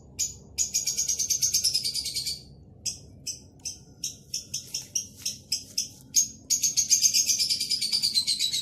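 A small songbird singing: two long, rapid trills that fall in pitch, with short separate chirps between them.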